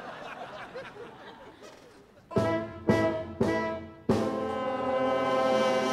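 Brass instruments play music: about two seconds in come three short chords, then a long held chord.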